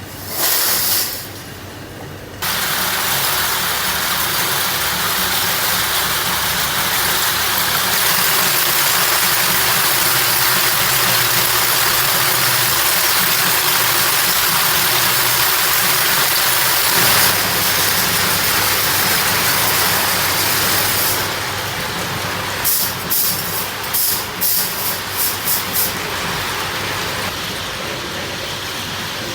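Loud steady factory machinery noise, a hissing rush, with a run of short sharp bursts near the end.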